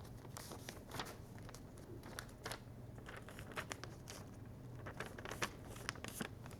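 A sheet of paper being folded and creased by hand, faint scattered crinkles and rustles as the folds of a paper airplane are pressed down.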